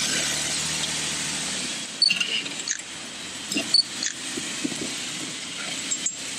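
An off-road vehicle's engine running low and steady, fading out under two seconds in, followed by a few sharp clicks and short high squeaks.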